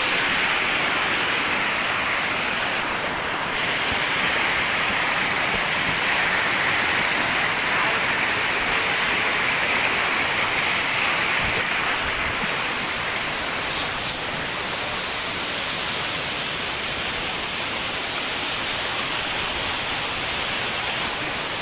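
A waterfall rushing steadily: a dense, even noise of falling water.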